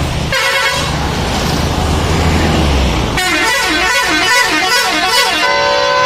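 A bus's telolet horn plays a warbling multi-tone melody, then holds a steady chord near the end. Before that, in the first half, there is the engine and road noise of the bus.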